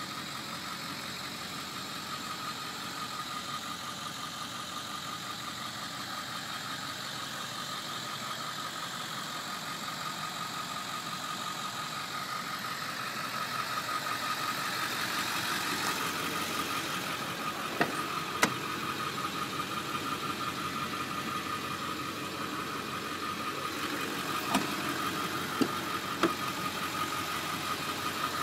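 Ford Excursion SUV engine idling steadily, with a steady high whine running through it. A few sharp clicks or knocks come in the second half.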